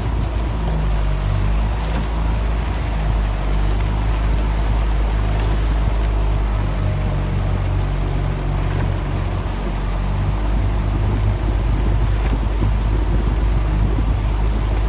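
A motorboat's outboard engine running steadily at low speed, a constant low hum, with the rush of water and wind.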